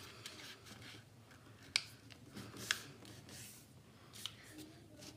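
Letter-size sheet of paper rustling softly as it is folded by hand, with two sharp crisp snaps about a second apart as the fold is pressed down.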